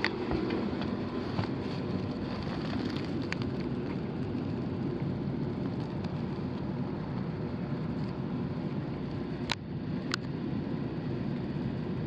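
Steady low rumbling noise with no clear rhythm, and two short sharp clicks near the end.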